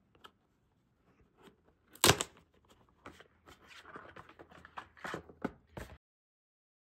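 Cardboard box tear strip ripped open with a sharp tear about two seconds in, followed by cardboard and paper rustling and sliding as the inner box and instruction sheet are pulled out. The sound stops abruptly near the end.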